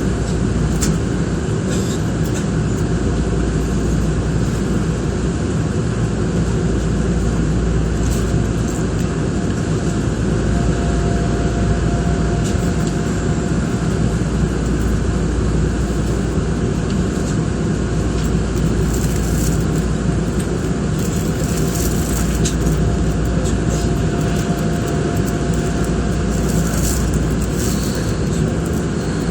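Steady hum and rumble inside the front car of an electric commuter train standing at a stop signal, with a few faint ticks near the end.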